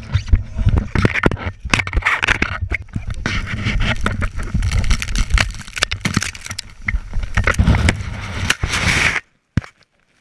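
Rushing whitewater and wind buffeting an action camera's microphone, with many knocks and scrapes as people scramble in an inflatable raft. The sound cuts off sharply about nine seconds in as the camera goes under the water.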